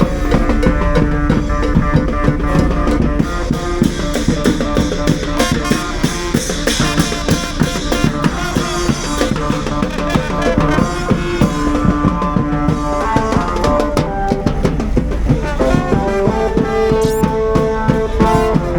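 Background music with a steady drum-kit beat and melodic instruments.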